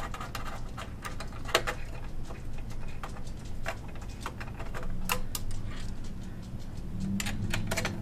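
Scattered small clicks and metal taps as CPU heat sinks and their screws are handled and fitted inside an HP Z800 workstation's open steel case, over a low hum.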